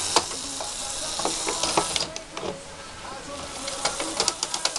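Remote-controlled LEGO Technic railway crane chassis running on plastic LEGO track. A steady hiss from its motor and gearing stops about two seconds in, followed by a run of sharp plastic clicks and ticks from the gears and wheels, coming closer together near the end.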